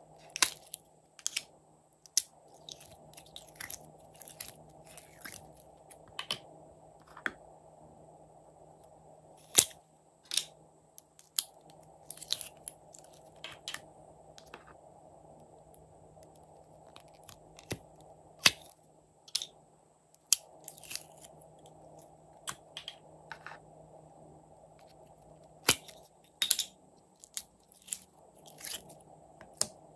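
Slime being squeezed by hand out of small plastic containers and piping bags: irregular crackling clicks and pops with soft squishes, some clicks much louder than others.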